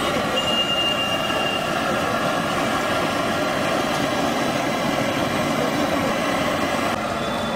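Steady background noise of a busy roadside food stall: traffic and engines running, with a brief high tone about half a second in.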